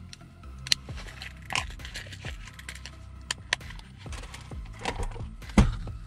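Metal clicks and clinks of a folding multi-tool being snapped shut and handled, with small handling knocks, then one louder thump near the end.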